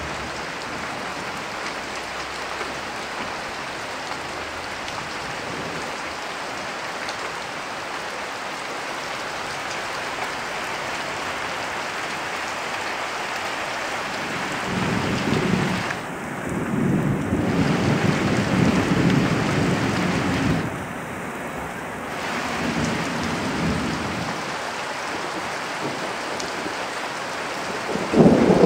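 Heavy rain falling steadily on the road and roofs. Thunder rumbles in long rolls from about halfway through, and a louder peal of thunder breaks near the end.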